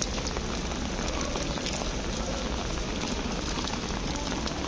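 Rain falling on a city street: a steady hiss with many small drop ticks over a low rumble of city background.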